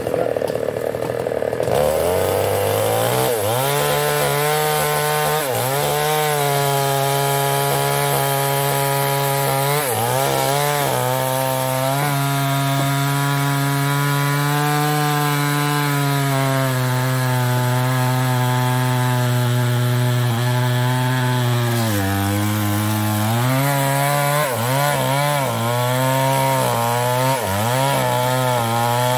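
Chinese-made two-stroke chainsaw cutting into mahogany wood: the engine revs high for about two seconds, then drops to a steady lower pitch under load as the chain cuts, sagging and recovering several times.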